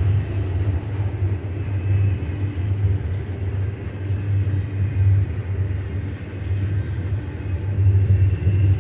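Double-stack intermodal container train's well cars rolling past, a steady low rumble of steel wheels on rail. A faint high whine joins about three seconds in.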